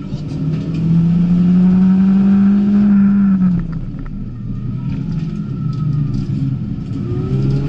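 Ford Fiesta ST engine heard from inside the cabin, pulling hard with the revs climbing for about three and a half seconds. The driver then lifts off and the revs drop to a lower, uneven pitch as the car slows for the next turn. The engine picks up again near the end.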